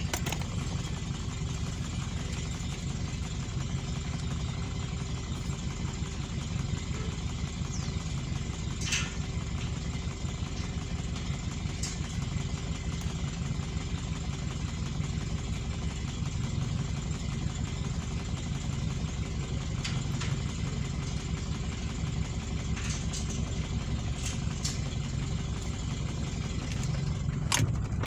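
Square-body VW Gol's engine idling steadily, with a few faint clicks.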